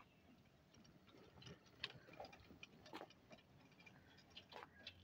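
Near silence with a few faint scattered ticks: an electric motorcycle riding past makes no motor noise.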